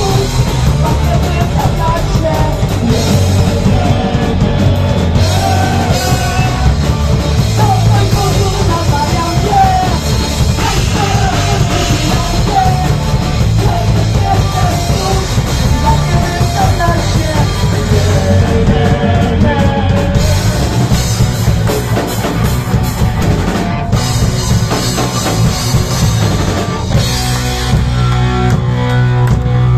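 Punk rock band playing live: a woman singing over electric guitars, bass guitar and a drum kit. Near the end the singing stops and the band plays on.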